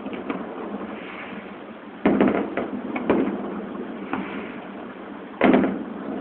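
Aerial fireworks shells bursting: three loud bangs about two, three and five and a half seconds in, each trailing off with crackles, and smaller pops between them.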